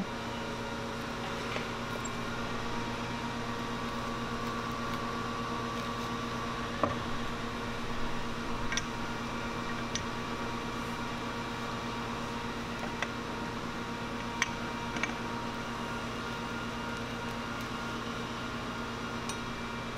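Steady mechanical hum of a fan or air-conditioning unit, with a handful of short, light metallic clicks and taps scattered through it as a wrench and the steel neck stem and triple tree are handled on the bench.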